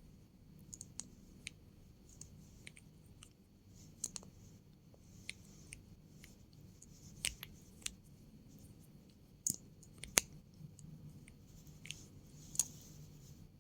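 Close-up ASMR trigger sounds: irregular sharp clicks and small pops, a few at a time, with several louder ones around the middle and one near the end.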